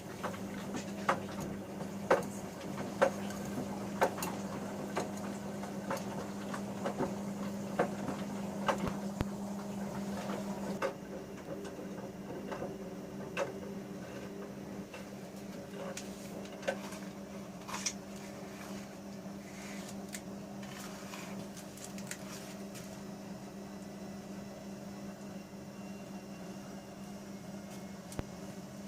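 Bauknecht Super Eco 6413 front-loading washing machine during its wash, with a steady motor hum as the drum turns and knocks about once a second from the laundry tumbling. The motor stops about eleven seconds in, leaving a quieter hum with occasional clicks.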